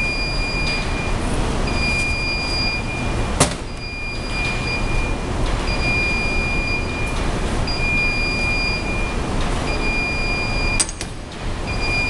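A high, steady beep repeating about once a second, each beep lasting most of a second, over a steady rushing background noise. A sharp click about three and a half seconds in and another near the end.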